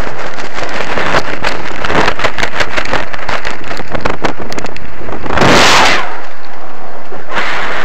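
Wind buffeting the microphone of a helmet-mounted camera during a parachute descent: a loud, gusty rush with a stronger blast about five and a half seconds in, then a brief lull before it picks up again.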